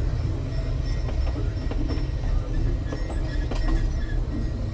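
Narrow-gauge train cars rolling past at close range: a steady low rumble of wheels on rail, with a few sharp clicks at the rail joints and a faint, thin squeal from the wheels.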